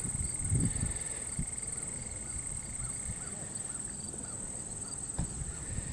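Insects trilling steadily at a high pitch over a low rumble, with one sharp knock about five seconds in.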